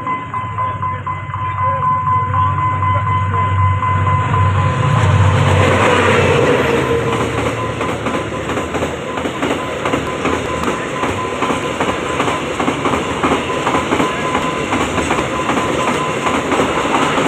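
A freight train passing: a deep locomotive rumble builds over the first few seconds, then the wagons' wheels clatter over the rail joints in a fast, steady rhythm.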